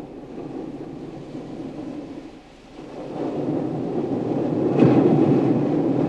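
Underwater rumble of a scuba diver's exhaled bubbles, swelling about halfway through and peaking near the end.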